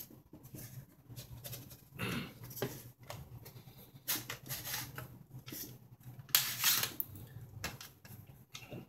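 Irregular scraping, rustling and light knocks from handling the surge protector's aluminum housing and its freshly removed back cover, loudest about two, four and six and a half seconds in. A low steady hum runs underneath.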